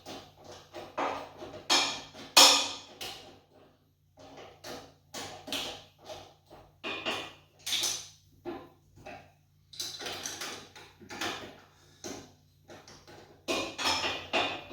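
Irregular metal clanks and knocks of hand tools and parts while handles are bolted and pinned onto a portable generator's steel frame, some strikes ringing briefly, with a short lull about three and a half seconds in.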